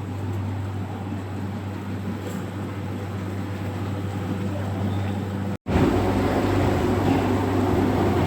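Steady low hum of forging-factory machinery with a noisy wash over it; it cuts out for a split second a little over halfway through, then returns slightly louder and rougher.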